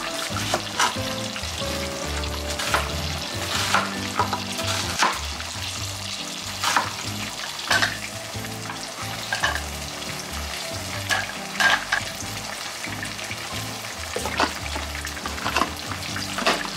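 Kitchen knife cutting an onion on a plastic cutting board, a dozen or so irregular sharp strokes about a second apart, with onion pieces dropped into a plastic chopper bowl, over background music.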